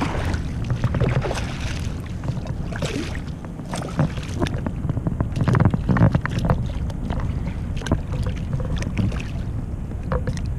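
Wind rumbling on the microphone and water around a kayak, with scattered short knocks and splashes while a hooked striped bass is fought to the side of the kayak on a bent rod.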